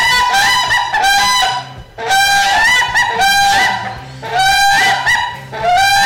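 A duck quacking: strings of quick, loud calls in bouts of a second or two, broken by short pauses.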